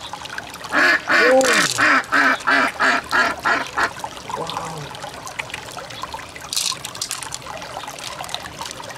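A duck quacking: a fast run of about ten quacks over some three seconds near the start, over a low trickle of water.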